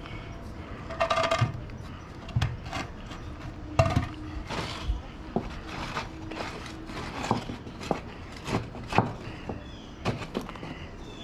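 Irregular light clicks, taps and knocks from hand tools and boards being handled and fitted at the edge of a wooden board.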